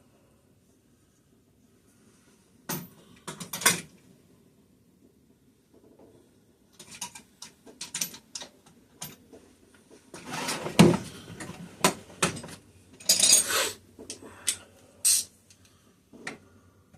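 Metal hand tools clinking and clattering in irregular bursts, as a socket and ratchet are picked up, fitted and set down.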